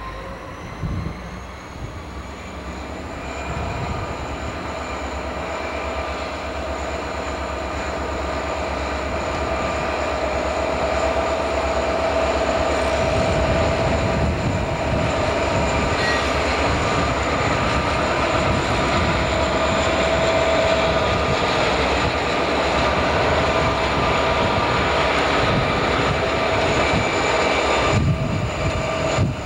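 EMD diesel locomotives heading a coal train pass by with their engines running, a low rumble under a steady high whine, growing louder as the units draw near and go past.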